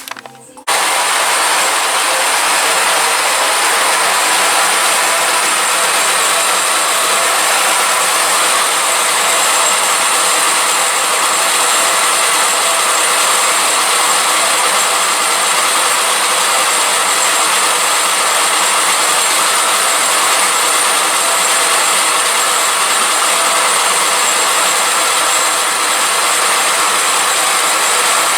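Cylinder-head resurfacing machine starting abruptly and running steadily under load, a loud, even grinding hiss with a high edge.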